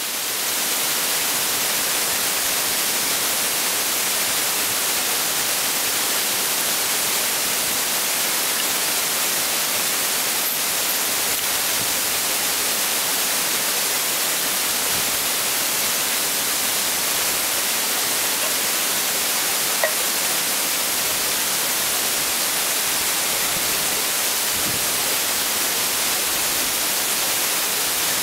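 Waterfall's rushing water, a steady even hiss that does not change, with a single brief click about twenty seconds in.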